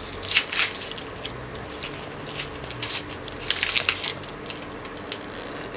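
Dry onion skin crackling and rustling as it is peeled off a whole onion by hand, in short bursts, the loudest about half a second in and again around four seconds in.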